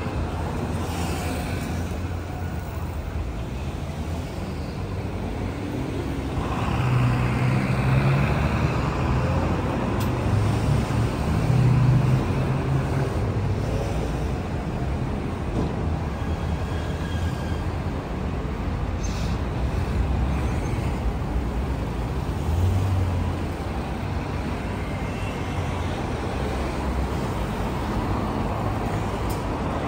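Road traffic on a city street, a steady rumble of passing cars, with a louder vehicle going by in the first half and another briefly past the middle.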